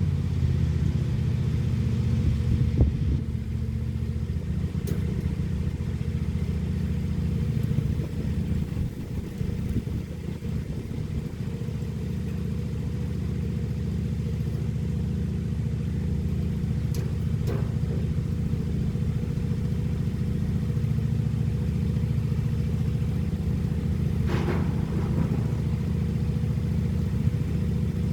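Lawn mower engine running steadily under load.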